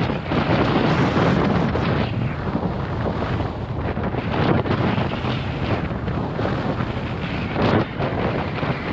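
Strong headwind buffeting the microphone of a skier's body-worn camera during a downhill run, a loud, gusting rush of wind noise.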